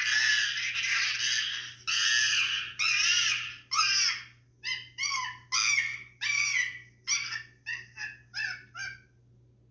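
Monkey screeching sound effect: a run of high, shrill calls, a few longer ones at first, then shorter, quicker ones, stopping about nine seconds in.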